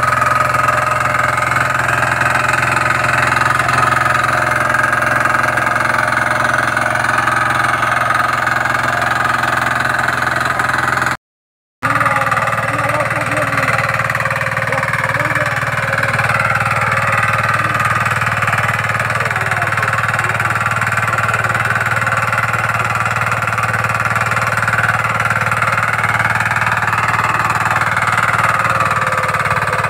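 Diesel power weeder engine running steadily while the machine tills through weedy ground between plant rows. The sound cuts out for about half a second some eleven seconds in, then the engine runs on as before.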